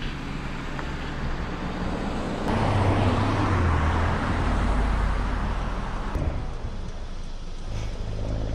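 A car driving past on the road, its tyre and engine noise swelling about two and a half seconds in and fading after about six seconds, over a low steady rumble.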